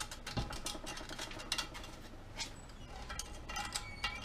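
A small screwdriver scraping and picking debris out of the clip grooves (bevels) of a driveshaft yoke: a run of light, irregular metal scratches and clicks, with a soft knock about half a second in.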